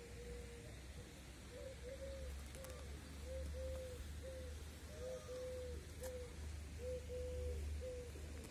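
Feral pigeons cooing: a continuous run of short, repeated coos at one steady pitch, over a steady low rumble.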